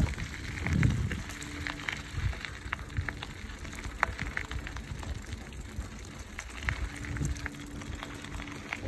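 Bicycle tyres rolling over a gravel road: a steady crackle with many small scattered clicks of loose stones.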